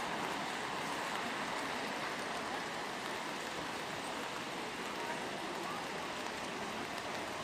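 Steady rain falling on wet pavement, an even hiss with no single sounds standing out.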